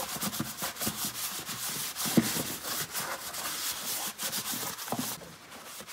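Continuous rubbing and scraping with scattered light clicks and knocks, which stops abruptly about five seconds in.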